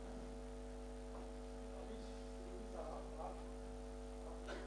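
Steady electrical mains hum from the microphone and sound system, several even tones held throughout, with a faint off-mic voice heard briefly a few times.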